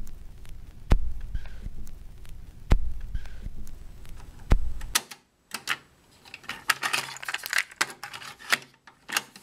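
A slow, deep beat with a sharp click about every two seconds, which stops about five seconds in. Then comes a run of irregular jangling clicks and rattles.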